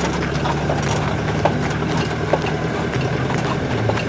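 Mercedes Sprinter van driving on a rough dirt road: a steady low engine hum with scattered short knocks and rattles from the body and suspension over the bumps.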